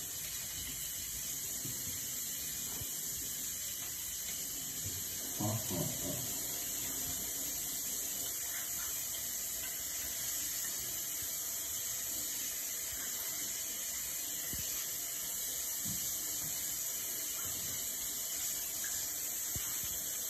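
Bathroom basin tap running steadily while hands are washed under it, a continuous hiss of water into the sink. A short pitched sound about five seconds in.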